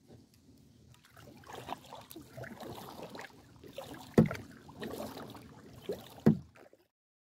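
Kayak paddle strokes: the blades dip and splash in the water, with two sharp knocks about two seconds apart. The sound cuts off suddenly near the end.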